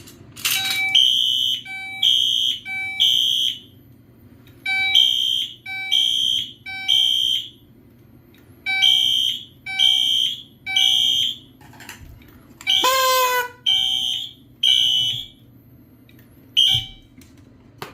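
Fire alarm sounding in the temporal-three evacuation pattern: three loud, high-pitched beeps, a pause, then three more, repeating about every four seconds. About thirteen seconds in, a brief pitched whoop cuts across it. After that the pattern breaks up into two beeps and a last short one near the end.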